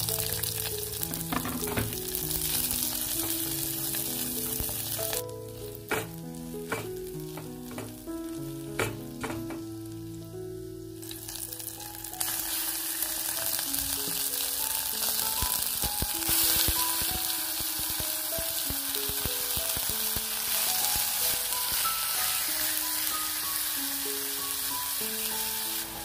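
Garlic, ginger and spring onion sizzling in hot oil in a stainless steel pot, then raw chicken pieces frying and being stirred. The sizzling drops away about five seconds in, with a few sharp knocks, and comes back stronger about halfway through. Background music plays throughout.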